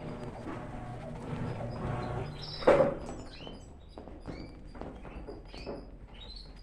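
Electrolux LTE12 top-loading washing machine agitating with a steady motor hum, then one loud thunk just under three seconds in, after which the agitation stops as the machine pauses into its soak phase. Birds chirp in the background.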